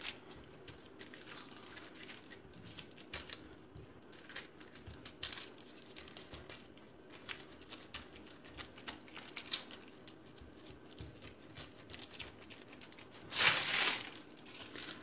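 Parchment paper rustling and crinkling under hands pressing and rolling a log of biscotti dough, with scattered small rustles throughout and one louder crinkle of the paper being handled about a second and a half before the end.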